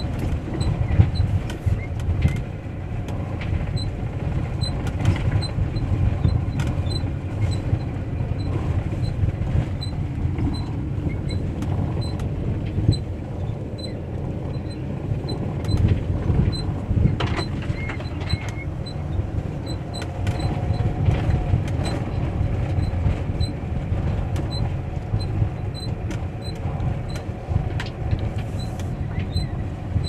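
Cabin noise of a Mercedes Sprinter 4x4 van driving slowly over a rough dirt road: a steady low rumble of engine and tyres, broken by frequent knocks and creaks as the van jolts over bumps. A faint high tick repeats evenly, about every two-thirds of a second.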